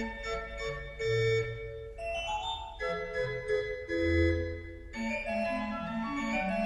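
Background keyboard music with sustained organ-like chords, and a quicker line of short notes coming in about five seconds in.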